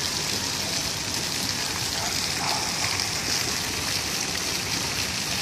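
Steady rush and splash of fountain water jets spraying into a shallow pool.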